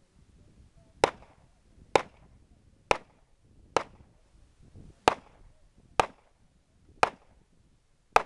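Handgun fired eight times at a steady pace, about one shot a second. Each shot is a sharp crack with a short echo after it.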